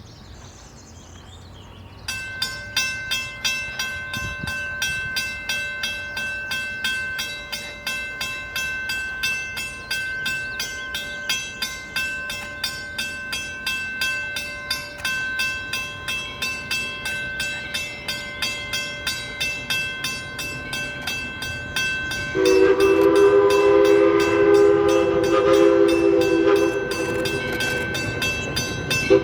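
Steam locomotive bell ringing in a steady, even rhythm of about two to three strokes a second, from ALCO 2-8-2 Mikado #40. About 22 seconds in, the locomotive's chime steam whistle starts blowing a loud, steady chord over the bell.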